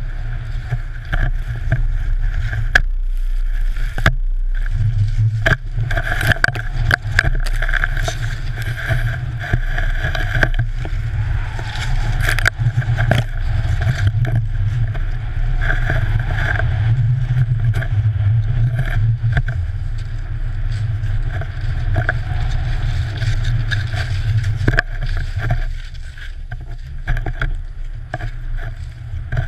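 Rushing wind buffeting a GoPro camera's microphone during a fast ski run through fresh powder, with skis hissing through the snow and scattered knocks. It dips briefly a few seconds in and eases off near the end.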